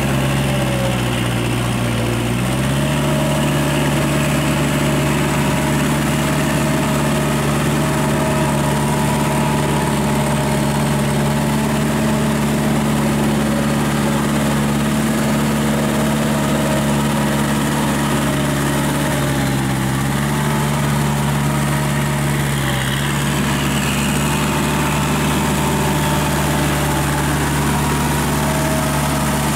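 Kubota L5018 tractor's diesel engine running steadily while it pulls a Maschio rotary tiller through a flooded paddy. The engine note rises a little a couple of seconds in, dips about two-thirds of the way through and picks up again.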